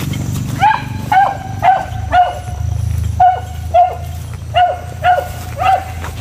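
Hunting beagle barking: nine short, high barks in three quick runs of four, two and three.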